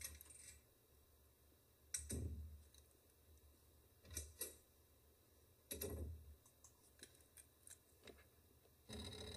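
Near silence: room tone broken by a few faint clicks and knocks, about two seconds apart.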